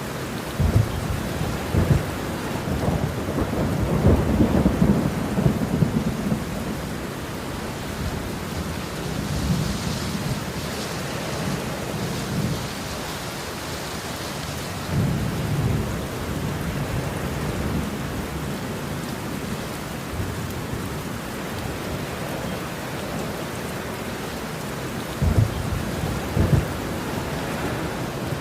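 Steady rain falling, with thunder rumbling repeatedly over it: a long low roll with sharp cracks in the first few seconds, another rumble about halfway through, and two sharper claps near the end.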